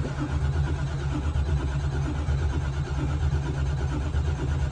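Starter motor cranking the Oldsmobile Cutlass's fuel-injected V8 over steadily with an even, rhythmic beat, without it catching: a cold engine that hasn't been started in a while.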